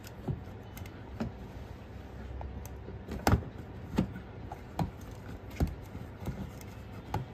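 Hard plastic parts of a kids' ride-on electric jeep's steering knocking and clicking as the steering column is worked onto the steering shaft. About seven separate sharp clicks and knocks at irregular intervals, the loudest about three seconds in.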